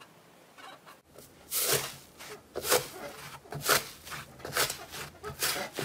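Hands squishing and pressing soft, fluffy slime in a bowl, giving wet squelching pops about once a second, starting about a second and a half in.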